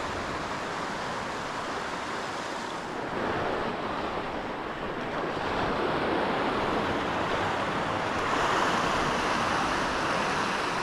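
Sea swell surging and breaking against a rock ledge, foaming water washing over and draining off the rocks, swelling louder a few seconds in and again through the second half.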